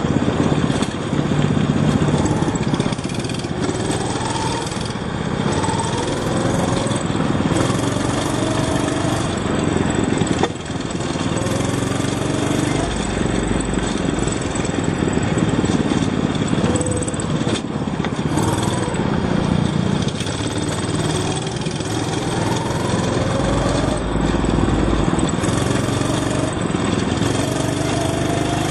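Small go-kart engines running, revving up and easing off again and again as the karts accelerate out of the corners and pass by.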